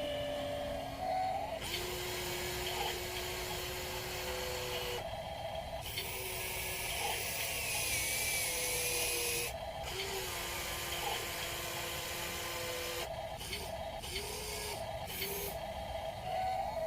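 Electric motors of a 1:16 scale RC excavator whining, the pitch stepping up and down and cutting in and out as different functions are worked, with a hiss that switches on and off.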